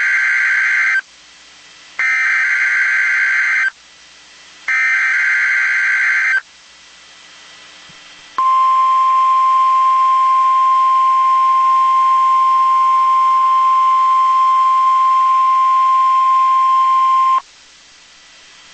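NOAA Weather Radio Emergency Alert System signal: three bursts of warbling SAME digital header data. After a short pause comes the steady 1050 Hz warning alarm tone, held for about nine seconds and cutting off suddenly.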